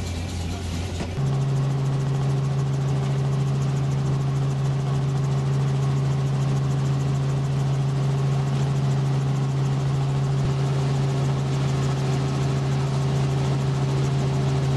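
Robinson R44 Raven II helicopter heard from inside the cabin: the steady drone of its piston engine and rotors. About a second in, a lower hum gives way to a louder, higher-pitched drone that holds steady.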